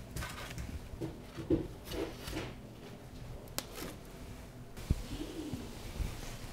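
Light knocks and rubbing as sugar-coated donuts are set down by hand on a plastic tray, with a few short low tones mixed in.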